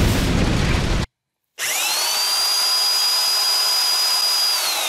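About a second of loud rushing noise that cuts off abruptly. After a short silence, a corded Black & Decker electric drill whines up to speed, runs steadily, and begins to wind down near the end. It is cranking a 3D-printed single-cylinder engine through its flywheel, and the engine does not fire.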